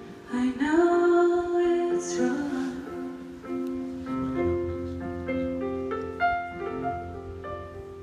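Live music: a woman singing a slow ballad to solo piano, with a long sung note about half a second in, heard from far back in the audience of an open-air theatre.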